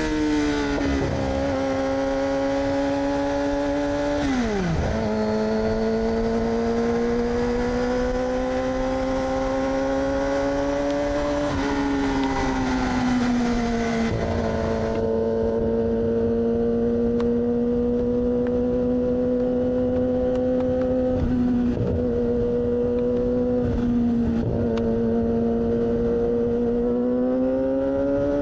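2006 Yamaha R6's inline-four, with an aftermarket AR exhaust, running under way at high revs. Its pitch falls sharply and settles lower about four seconds in, climbs slowly, drops again around twelve seconds, holds steady for a long stretch, then rises near the end.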